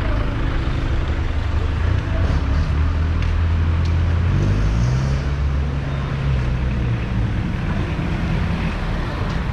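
Street traffic: a motor vehicle engine hums steadily, its pitch stepping up about halfway through as it revs, over a continuous rumble of road noise.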